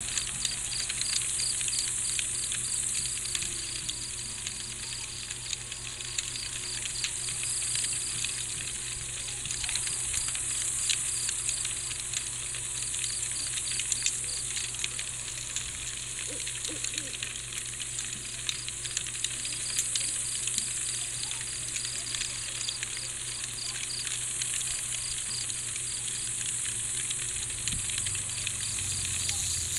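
Night-time insect chorus. Crickets chirp in a steady pulsed trill, under a higher insect buzz that swells and fades every few seconds, with fine crackling throughout.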